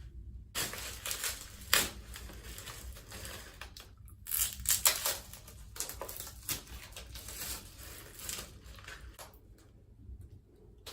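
Plastic trash bag crinkling and rustling as it is untaped and pulled off the body. It comes in irregular bursts, busiest about four to five seconds in, and dies down near the end.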